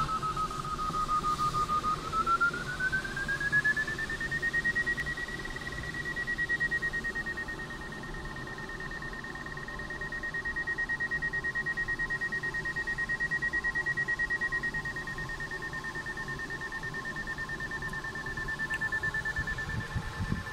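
A glider's electronic audio variometer (LX 9070) beeping rapidly, its pitch rising about two seconds in and then holding high. The fast, high beeping signals a strong climb in wave lift, around 5 to 8 metres per second.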